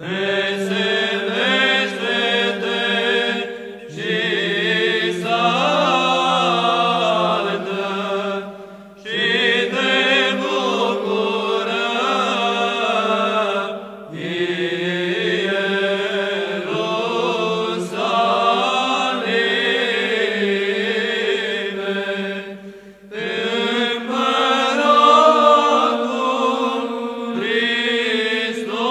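Romanian Byzantine (psaltic) chant in the fifth tone: a long melismatic sung line over a held drone note (ison), in phrases separated by a few short breath pauses.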